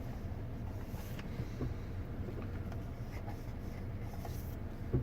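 Car engine idling: a steady low rumble with a few faint ticks.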